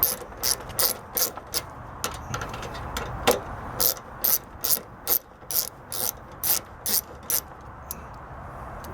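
Ratchet tool clicking in a steady run of short, sharp clicks, about two to three a second, as a headlight mounting screw is backed out. The clicking stops about seven and a half seconds in.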